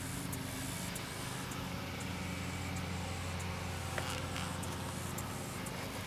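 A steady low mechanical hum, an engine or motor running at a constant speed, with faint scattered high ticks over it.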